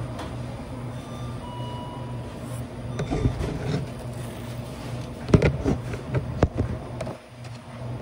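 A steady low machine hum, with sharp knocks and rustling from a phone and a clear plastic bag being handled close to the microphone, clustered about three seconds in and again past five seconds.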